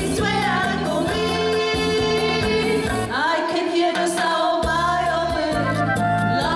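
Two women singing a pop song live into microphones over instrumental accompaniment with a steady beat.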